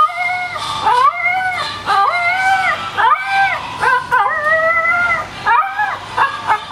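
Poodle howling in a series of drawn-out notes, each rising and then held, about one a second, breaking into shorter yips near the end.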